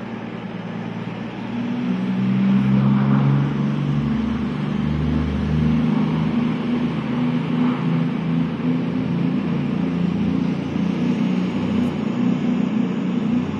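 ATR 72 twin turboprop taking off and climbing away: a steady, low propeller drone of several tones that grows louder about two seconds in and then holds.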